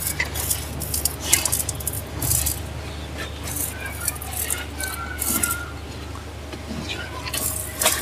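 Water buffalo being milked by hand: milk squirting from the teat in short spurts, roughly one a second, over a steady low hum.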